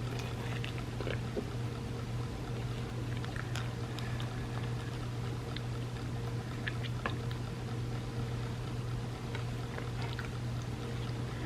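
Close-up eating sounds: small wet mouth and spoon clicks from someone eating a soft chocolate mousse trifle, scattered irregularly over a steady low hum.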